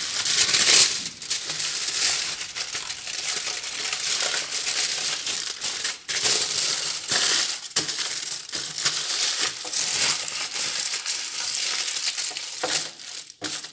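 Aluminium foil crinkling and crackling as it is folded and pressed around by hand, with a few short breaks.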